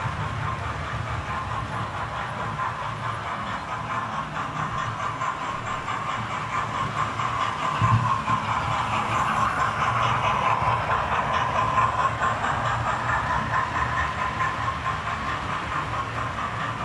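Electric model railway trains running on the layout: a steady whirr of small motors and a rattle of wheels on the rails. It grows louder about eight seconds in as locomotives come close.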